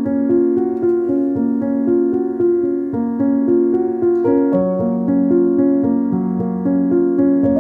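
Background music: a keyboard melody over held chords, with the bass note stepping down about halfway through.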